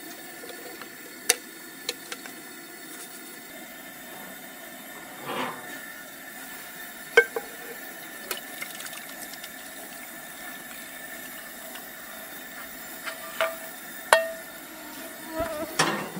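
Cast iron skillet and metal cookware being handled on a camp stove: a few sharp clinks and knocks, one with a short metallic ring, and some scraping. A steady faint hiss runs underneath.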